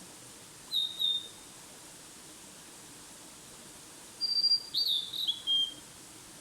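A songbird singing: a short two-note whistled phrase about a second in, then a longer phrase of several clear whistled notes that step down in pitch, over a faint steady background hiss.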